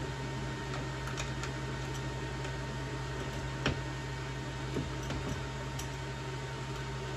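A few scattered light clicks and taps of metal chair hardware being handled at the seat's tilt mechanism, over a steady low hum and hiss.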